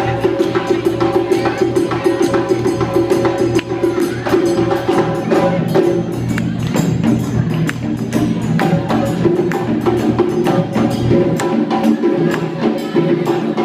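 Senegalese sabar drums played as an ensemble in a fast, dense rhythm of sharp stick-and-hand strokes.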